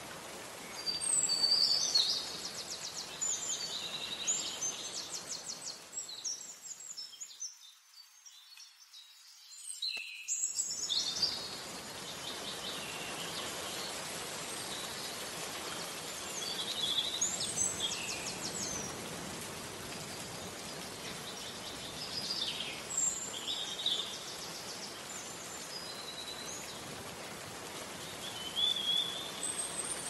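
Steady rain with many birds chirping and trilling over it in scattered bursts. About seven seconds in the rain fades almost out for a few seconds, then comes back abruptly with a burst of birdsong.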